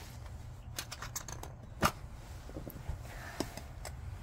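Light clicks and taps of a plastic polish jar and its lid being handled, with a run of quick clicks about a second in and one sharper knock just before two seconds.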